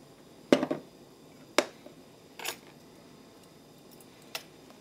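Kitchen-counter handling knocks: a glass oil bottle set down and metal chopsticks picked up off a bamboo cutting board. The loudest knock, with a short rattle, comes about half a second in, a second sharp knock about a second later, then a softer one and a small click near the end.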